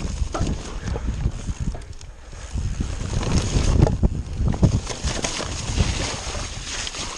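Mountain bike descending a rough, wet, rocky trail: tyres rumbling and crunching over stones and mud, with irregular knocks and rattles from the bike, and wind buffeting the camera microphone.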